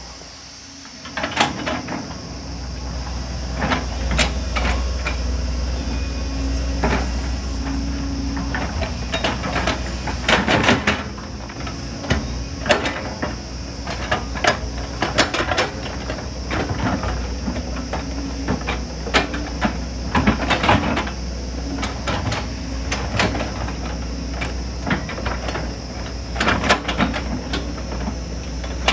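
Excavator's diesel engine running steadily under load, with repeated sharp clanks and scraping knocks of metal working against rock and earth; the machine gets louder about a second in.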